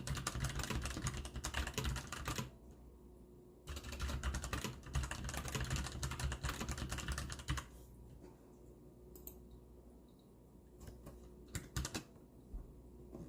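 Hansung GTune GK600 mechanical keyboard with brown switches being typed on: two runs of rapid keystrokes, then a few scattered single key presses in the second half.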